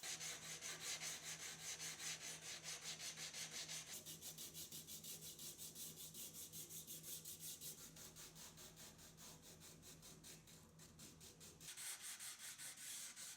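Sandpaper rubbed back and forth over an epoxy-coated MDF pattern to smooth off the raised fibres, in quick even strokes about five a second.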